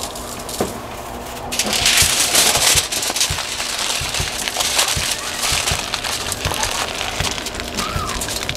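Heavy-duty aluminium foil crinkling and crackling as it is folded and scrunched by hand around a potato, loudest around two seconds in.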